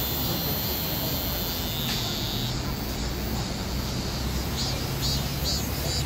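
Cicadas singing: a steady high-pitched buzzing drone that eases off a couple of seconds in, then a run of short pulsed calls about twice a second near the end, over a low steady rumble.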